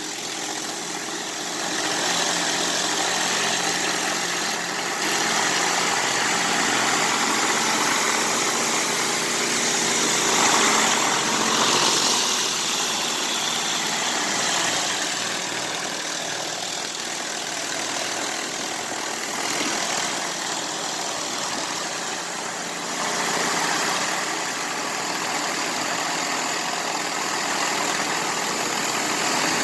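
Gas-engine pressure washer running steadily under the continuous hiss of its high-pressure water jet striking the barn wall. The hiss swells and fades as the spray moves, loudest a little before the middle.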